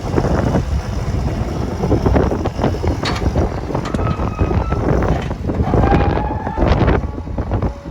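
Wind buffeting the microphone in irregular gusts, a heavy low rumble, with a few short whistling tones about halfway through.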